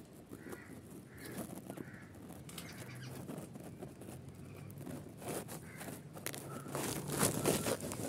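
Bulbul nestlings begging in the nest with short, harsh, repeated calls. Louder rustling of leaves and twigs comes in about five seconds in and again near the end.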